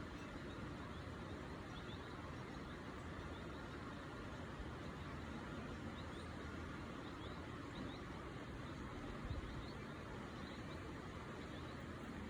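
Steady low background rumble with faint, short high-pitched chirps scattered through it, and a soft low thump about nine seconds in.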